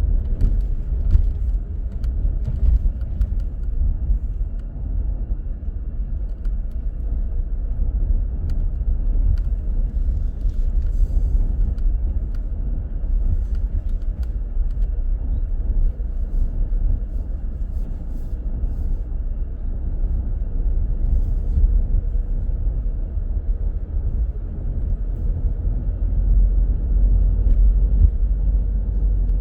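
Car driving through city traffic: a steady low rumble of engine and road noise, with faint scattered ticks.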